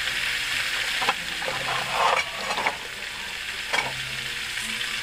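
Chicken feet sizzling as they fry in a metal wok with sautéed onion and spices. A few short knocks sound through it, the loudest about two seconds in.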